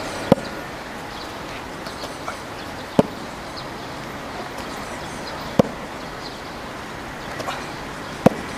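Four sharp slaps, evenly spaced about two and a half seconds apart, over faint outdoor background.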